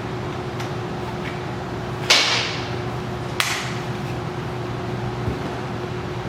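A short rasp about two seconds in, fading quickly, and a sharp click about a second later: hand tools and network cable being worked, over a steady low hum.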